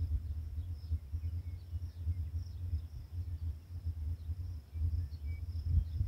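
Wind buffeting the microphone in uneven gusts of low rumble, over a steady high insect trill and a few faint, brief bird chirps.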